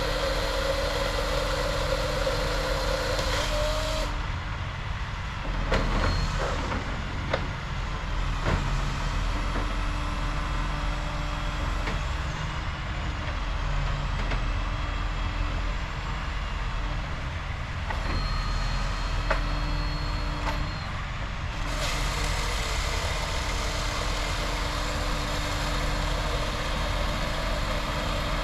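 Truck engine running steadily, driving the knuckle boom crane, with a few sharp knocks and clunks in the middle.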